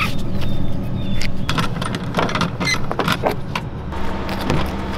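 An engine running steadily, with clinks and rattles over it.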